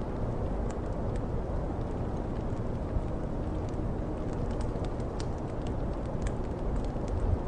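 Fireplace fire crackling: scattered sharp pops and snaps over a steady low rumble of noise.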